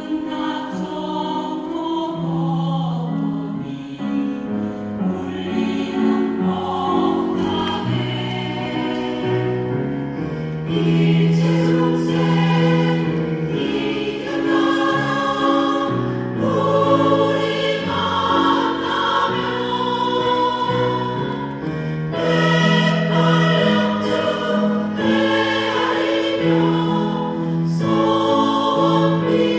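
Mixed choir singing a Korean Buddhist hymn in harmony, moving from one held chord to the next.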